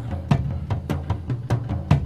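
Background music with a steady drum beat over a bass line.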